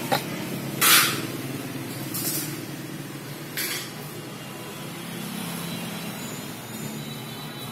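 Steady low rumble of street traffic, with short hissing rustles at about one, two and a half, and three and a half seconds in.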